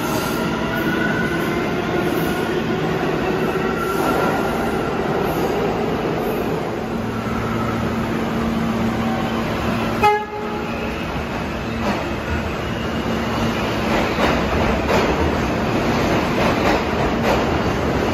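Subway trains moving through an underground station. For the first few seconds a train's motors whine, rising and falling in pitch. About ten seconds in there is a brief horn toot, then the steel wheels of a train of R160-series cars clack over the rail joints, growing louder near the end.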